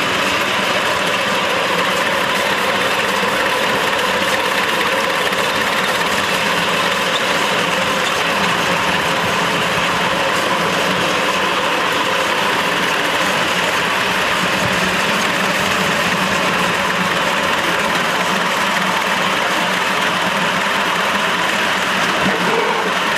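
5-inch gauge live steam locomotive and riding trolley running steadily along the track at speed: a loud, continuous running noise with no break.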